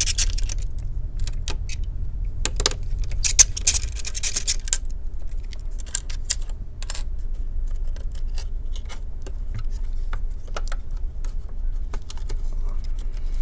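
Small laptop parts and the DC jack cable being handled: scattered light clicks and rattles, busiest in the first few seconds, over a steady low hum.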